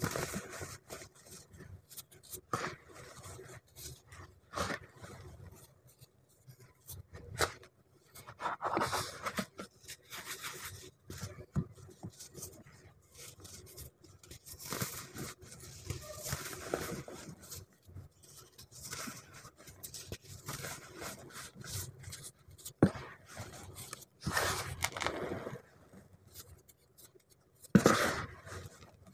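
Hands crushing and crumbling soft blocks of dyed powder, making irregular crunches and gritty scrapes. Near the end, fingers press into the loose powder bed with a louder crunch.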